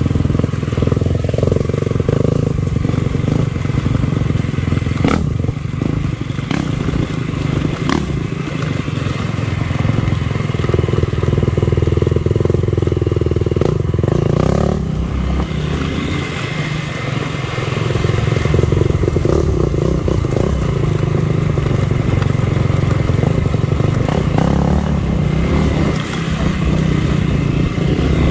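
Dirt bike engine running as the bike is ridden along a trail, its pitch rising and falling with the throttle, with a few sharp knocks.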